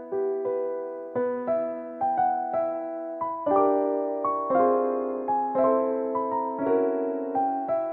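Background keyboard music: a slow, gentle melody on an electric piano, with a new note or chord struck about every half second and each one fading as it rings.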